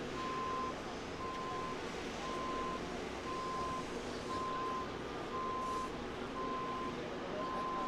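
A vehicle's reversing alarm beeping steadily, one half-second beep about every second, over a background of outdoor noise.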